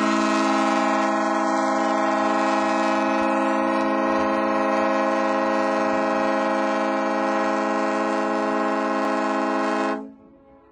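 A cruise boat's horn sounding one long, steady blast at a single pitch, cutting off suddenly near the end.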